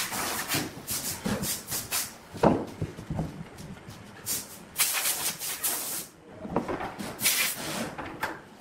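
Sawn wooden blocks being handled on a wooden tabletop: set down and knocked against each other, with several longer scraping slides. The longest slide comes about five seconds in.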